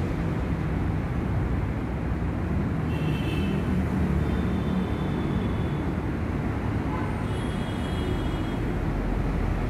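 Steady rumble and hum of workshop machinery running, with a few faint high-pitched squeals.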